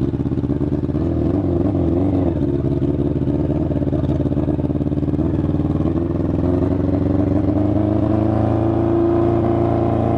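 Yamaha FZ6 motorcycle's inline-four engine running without its catalytic converter, steady at first, then its speed rising gently from about six seconds in. The bike has been making a strange, ugly noise that the rider cannot yet explain.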